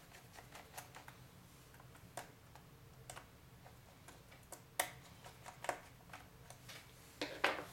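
Small precision screwdriver backing out the screws of a laptop's memory-compartment cover: faint, scattered clicks and ticks of metal on the screw heads and plastic, with a louder cluster of clicks near the end.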